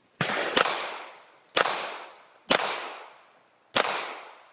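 Handgun shots: five in all, a quick pair near the start and then single shots about a second apart, each one's echo fading off behind it.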